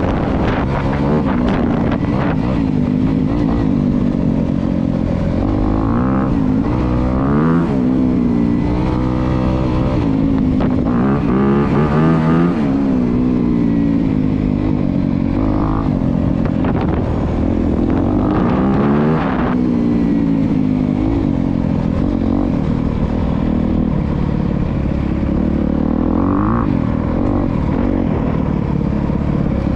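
Honda CRF250R's four-stroke single-cylinder engine running under load while being ridden, its pitch rising and falling several times as the throttle is opened and rolled off.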